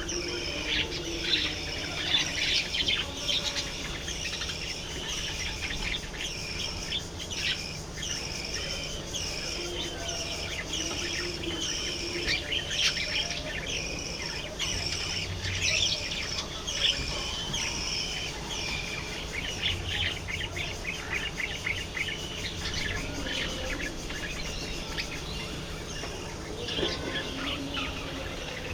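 A flock of budgerigars chattering: many short, high chirps overlapping without a break.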